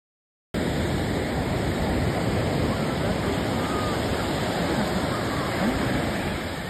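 Ocean surf breaking and washing on the shore, a loud steady rush that starts abruptly about half a second in.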